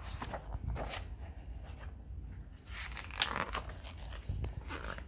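Paper pages of a picture book being handled and turned: a few short rustles and crackles, the loudest about three seconds in.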